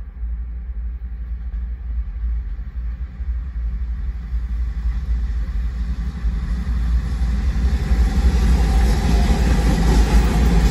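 BNSF freight train approaching, led by GE Evolution-series diesel locomotives. A steady low rumble grows louder and fuller over the second half as the locomotives near and pass into view.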